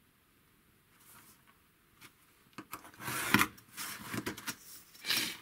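Near silence, then, from about halfway in, a few short scraping strokes: a steel ruler and marking tool rubbing over a sheet of galvanized steel as lines are marked out on it.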